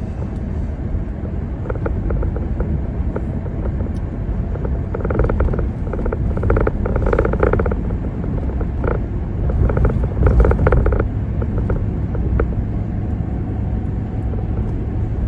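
Car travelling along the road: steady low road and engine rumble, with short spells of quick rattling clicks about five seconds in and again around ten seconds.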